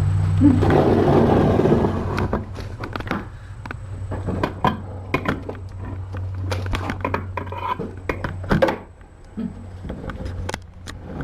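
Rustling for about two seconds, then a run of irregular light clicks, taps and scrapes of things being handled, over a steady low hum.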